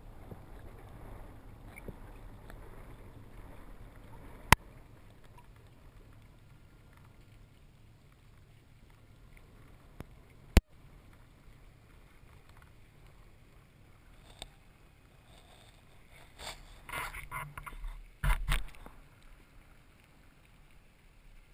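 Underwater ambience picked up through a diving camera: a steady low murmur, broken by two sharp knocks, one about four and a half seconds in and a louder one about ten and a half seconds in, then a brief flurry of rustling knocks near the end.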